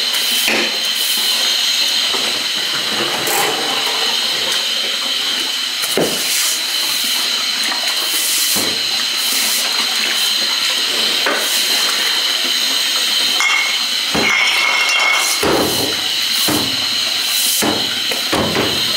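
Milwaukee M18 drum drain snake running with a steady high whine, its 7/8-inch cable spinning in a floor drain with irregular clanks and knocks as it works through a clogged sewer line.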